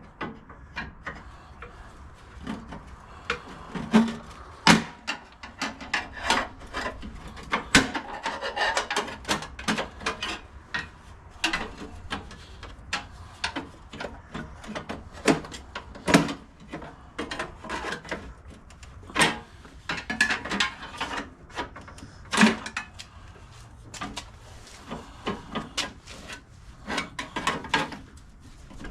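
Hand tools and snowblower parts being handled during disassembly: irregular clicks and knocks, with scraping and rubbing in between.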